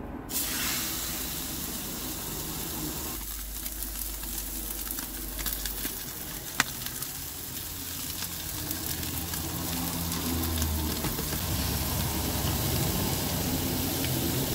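Steak laid into a hot frying pan on a portable gas stove, bursting into a sizzle at once and frying steadily with onions and mushrooms in the pan. A single sharp click comes about six and a half seconds in.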